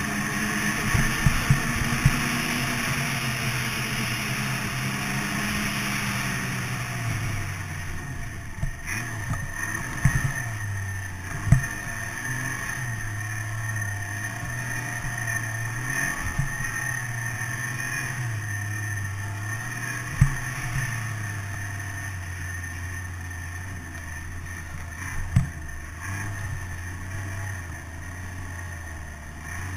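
Snowmobile engine running, its pitch rising and falling every few seconds as the throttle is worked, with a steady high whine alongside. A few sharp knocks stand out, about 10, 11, 20 and 25 seconds in.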